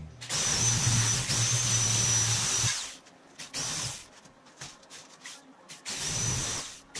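Drill-driven sheet-metal shear cutting thin aluminium sheet: a steady high whine for about two and a half seconds, then a few short bursts and a second shorter run near the end.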